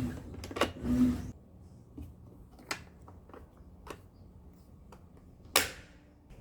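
Hands working on the plastic parts of a robot vacuum's main brush and its compartment. About the first second and a half is rubbing and scraping, followed by a few light clicks and one sharp click near the end.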